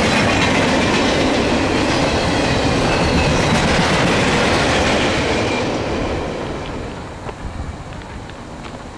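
Freight cars of a fast intermodal train rushing past, with steel wheels clicking over the rail joints. The noise fades away after about five seconds as the last cars go by, leaving a few faint clicks.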